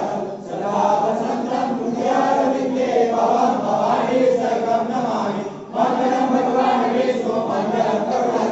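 A group of devotees singing an aarti hymn together in a chant-like unison. The singing breaks off briefly about half a second in and again just before six seconds, as at the end of a line.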